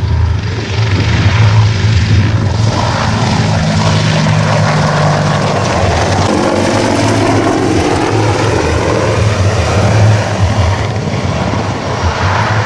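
AH-64 Apache attack helicopter in flight, its main rotor and twin turboshaft engines running loud and steady.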